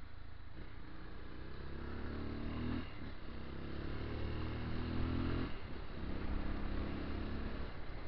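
Motorcycle engine pulling under throttle over wind and road noise, with a brief drop in engine sound about three seconds in and again at about five and a half seconds, like gear changes.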